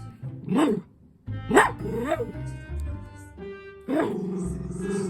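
Small dachshund–toy poodle mix dog barking several times in short, sharp yaps, the last one longer and drawn out, with background music playing underneath.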